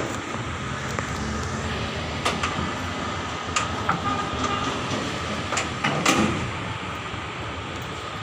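Fire truck engine running with a steady low rumble, while its metal side compartment door and latch are handled, giving several sharp knocks and clicks. The loudest knock comes about six seconds in.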